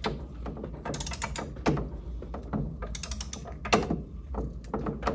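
Ratchet head of a Craftsman click-type torque wrench clicking in short, irregular runs as it is swung back and forth, winding down the bearing carrier retainer nut on a Mercruiser lower unit before the set 100 lb-ft is reached.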